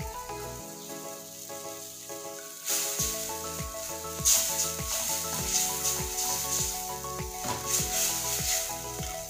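Soy sauce mixture with garlic, onion and carrot sizzling in a stainless steel pan while being stirred with a wooden spatula; the sizzle grows louder about three seconds in. Background music with a steady beat plays throughout, the beat dropping out briefly near the start.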